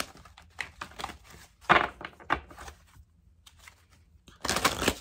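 Deck of cards being shuffled by hand: crisp papery slaps and riffles that come in clusters, a louder one about two seconds in and another near the end, with a short pause between.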